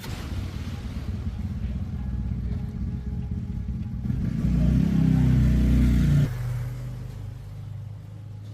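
A motor running with a low rumble. It swells louder for about two seconds, then cuts back sharply and hums down.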